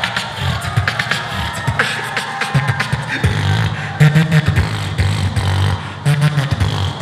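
Beatboxing into a handheld microphone: a fast run of vocal kick, snare and click sounds, with long low bass hums layered under the beat from about three seconds in.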